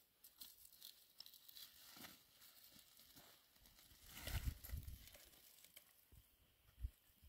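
Faint rustling and crinkling over near silence, with a louder rustle about four seconds in.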